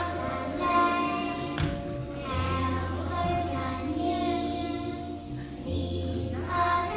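A group of young children singing together, holding long notes, over musical accompaniment with a steady bass line.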